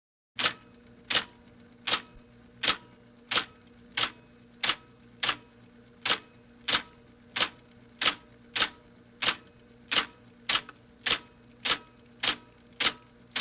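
Electric typewriter keys striking one at a time in a slow, even rhythm, about three sharp clacks every two seconds, over the machine's steady motor hum. The clacks start about a third of a second in, after a short silence.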